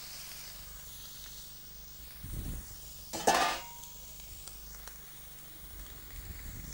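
Monkfish fillets sizzling steadily on a hot, oiled barbecue hotplate. A low thud comes a little over two seconds in, and about three seconds in there is a sharp metallic clank with a short ring, the loudest sound here.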